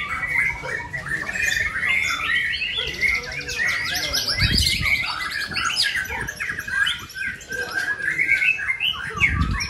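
Several white-rumped shamas singing at once, a dense unbroken chorus of fast chirps, trills and whistles. Two dull low thuds sound, one about halfway and one near the end.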